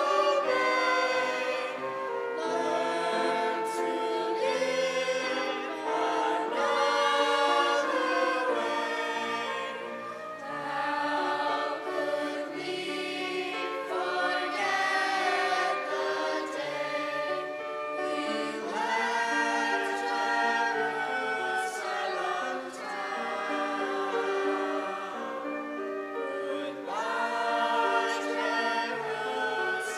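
A choir singing a song in held, sustained notes.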